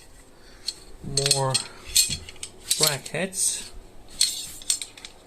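Loose metal brackets clinking and rattling against each other as they are handled, several short sharp clinks.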